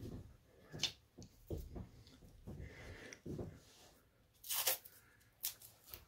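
Scattered handling noises at a workbench as a roll of masking tape is fetched: light knocks, clicks and rustles, with a brief louder rasp about four and a half seconds in and a shorter one about a second later.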